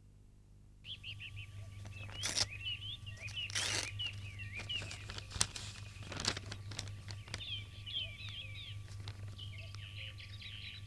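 Small birds chirping in quick, repeated twittering calls over a steady low hum, starting about a second in, with a few brief noisy swishes.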